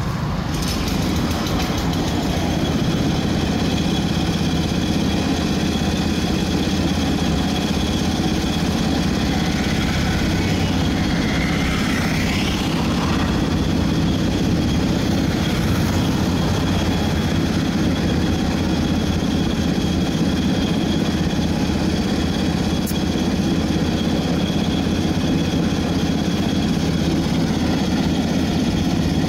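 An engine idling steadily, a loud, even low hum with no change in speed.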